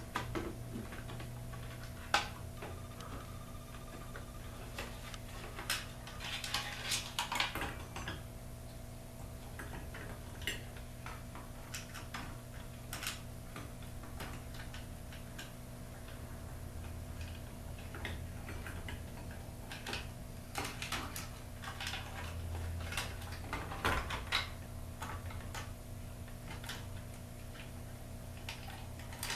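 Scattered light clicks and small plastic taps as wire connectors are pushed onto the terminals of a replacement garage door opener logic board, some in quick clusters, over a steady low hum.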